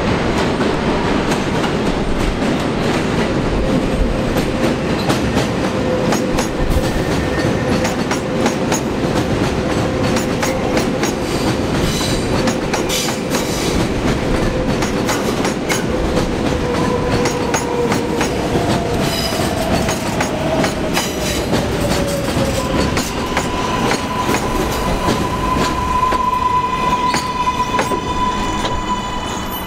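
A train of Budd R32 subway cars running on elevated steel track, with dense rumbling and clicks of wheels over rail joints. Wheels squeal on the curve, one steady pitch for much of the first two-thirds, then a higher steady squeal near the end.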